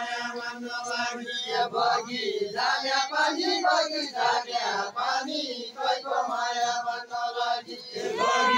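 Group of voices singing a live Deuda folk song from far-western Nepal, unaccompanied, chanted in long held lines with short breaks between phrases.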